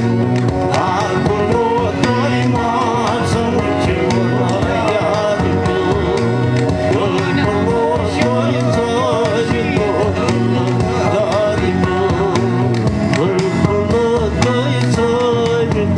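Kashmiri song: a voice singing a wavering melody over a steady hand-drum beat.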